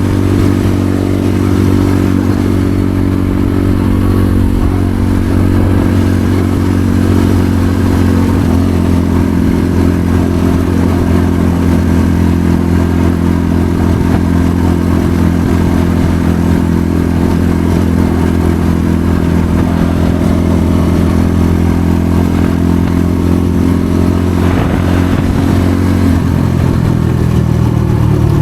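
Motorcycle engine running at a steady, even speed, its pitch shifting a couple of seconds before the end.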